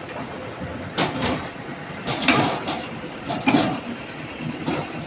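Roller machine working a steel truck leaf spring: a steady machine hum with irregular sharp metallic clanks and creaks, about half a dozen, as the leaf is worked between the steel rollers.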